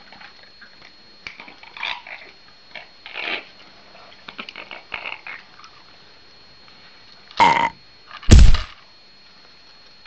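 Amazon parrot giving two loud, gruff, burp-like calls about a second apart near the end, after softer short sounds in the first half.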